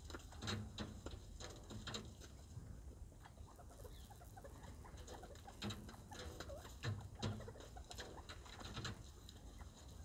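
Northern bobwhite quail calling softly with low coos while pecking and scratching at seed and hay, heard as scattered faint taps and rustles at an irregular pace.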